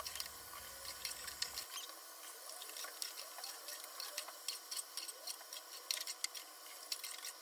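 Vegetables sautéing in hot oil in a pan: a steady sizzle with many small crackles and pops.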